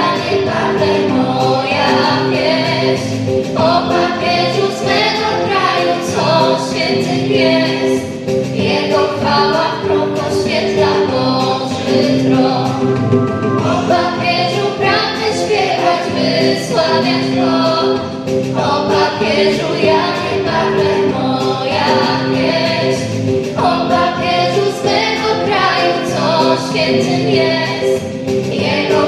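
Girls' choir singing a song into microphones, voices amplified over steady held accompaniment tones.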